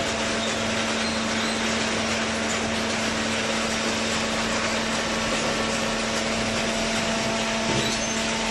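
Hydraulic cardboard baler running: a steady motor-and-pump hum over mechanical noise, with a brief knock near the end.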